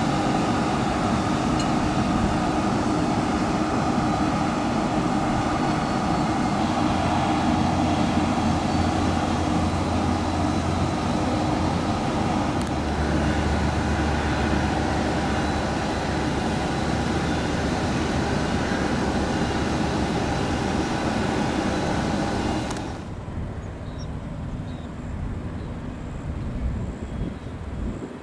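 Steady whine and rumble of jet aircraft engines running, with a deeper drone coming in a few seconds in and growing louder about halfway through. The sound drops suddenly to a quieter, thinner hum about 23 seconds in.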